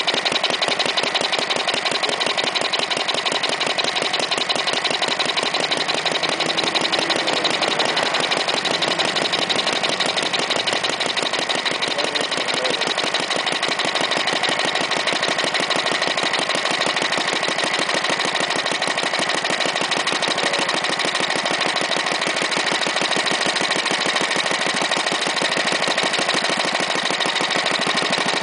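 1936 Briggs & Stratton WM single-cylinder air-cooled engine running steadily, firing in quick, even beats.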